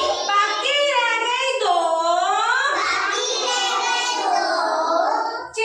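Child singing a Hindi nursery rhyme in a high voice, the pitch rising and falling line by line, with a brief pause near the end.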